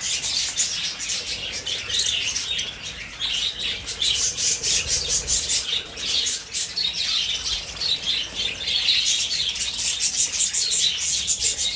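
A flock of budgerigars chattering and chirping while they feed, a dense, unbroken stream of short high calls.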